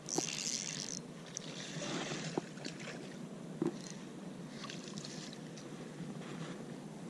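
Wind on the microphone and outdoor hiss, with a brief rustle of a sleeve brushing against the camera in the first second and a few light handling clicks as a fish is reeled in on a spinning rod.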